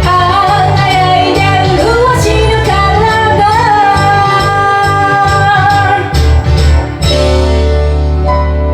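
A woman singing a Japanese pop song over a karaoke backing track with bass and drums. She ends the line on a long held note, and her voice stops about six seconds in, leaving the backing band playing.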